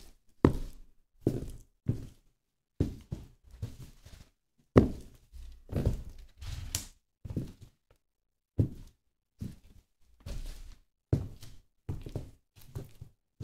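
High-heeled shoes stepping on french fries and burger buns on a metal tread-plate floor: a run of separate heel thuds with short crushing tails, about one or two a second, with a pause of over a second about halfway through.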